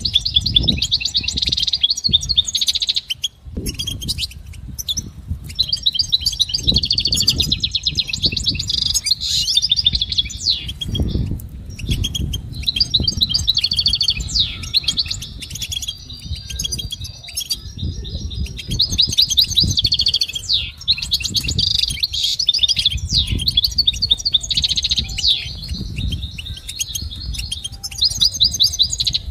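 European goldfinch singing a long, fast twittering song of rapid high notes, in phrases with brief pauses between them.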